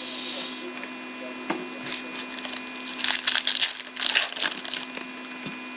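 Trading cards being shuffled and slid against one another in the hands. There are several short bursts of dry rustling from about two seconds in, with a few light ticks near the end.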